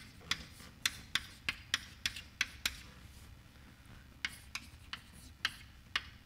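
Chalk writing on a blackboard: a run of sharp taps and short scratches, a few a second, with a pause of about a second midway before the writing picks up again.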